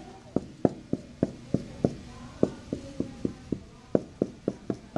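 Dry-erase marker tapping out short tick marks on a whiteboard: a quick series of sharp taps, about three a second, with a short pause near the middle.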